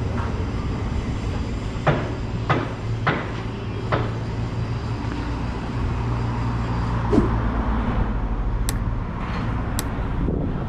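Outdoor street ambience: a steady low rumble with a few sharp knocks about two to four seconds in, and a car passing by about seven seconds in.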